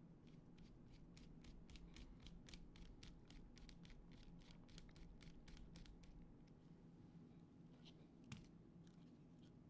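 Faint rapid clicking from small hand work on an FPV drone, about four clicks a second, stopping about six seconds in. A single sharper click follows near the end.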